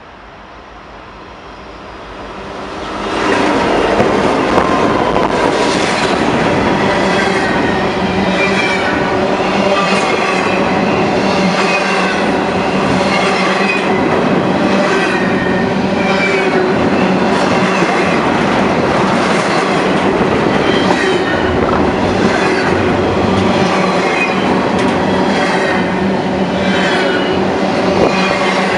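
A train passing close by on the main line: its noise builds quickly over the first three seconds, then a steady run of wheels on rail with regular clicks over the rail joints.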